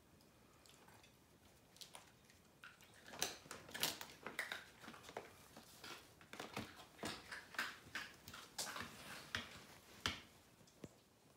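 Large paper bag crinkling and rustling in irregular crackles as a cat shifts about inside it, starting about three seconds in.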